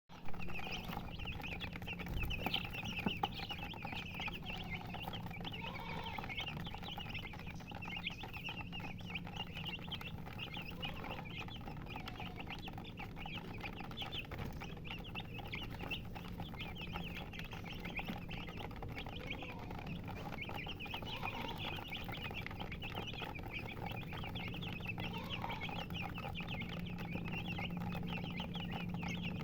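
A crowd of chicks peeping, a dense, rapid stream of high chirps, with a hen clucking lower now and then. A steady low hum runs underneath.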